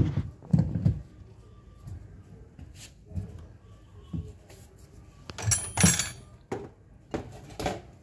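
Knocks and clatter of hard plastic washing-machine parts being handled and fitted into place, a few sharp knocks at the start and a busier burst of clatter a little past the middle.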